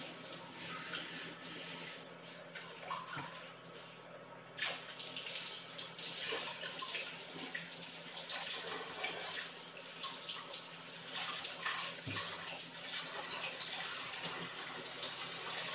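Kitchen tap running into a stainless-steel sink while leafy bok choy is rinsed under it, water splashing off the leaves; the flow gets louder about four seconds in.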